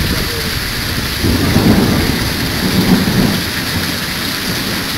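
Heavy rain pouring down in a severe thunderstorm, with a low rumble of thunder that swells about a second in and fades after about three seconds.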